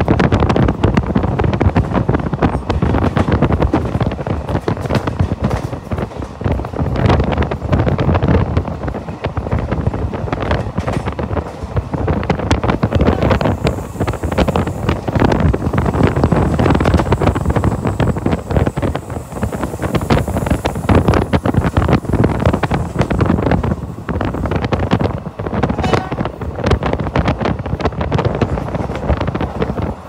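Wind buffeting the microphone at the open window of a moving passenger train, over the steady rumble and clatter of the train running.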